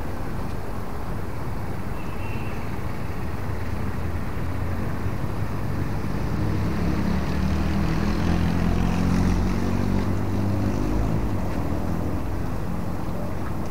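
A passing engine: a low drone that swells from about six seconds in, is loudest around nine seconds, then fades, over a steady low rumble.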